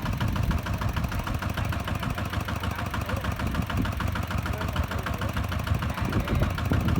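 Single-cylinder Kubota ZT-150 diesel engine of a two-wheel hand tractor running steadily, with a rapid, even chugging.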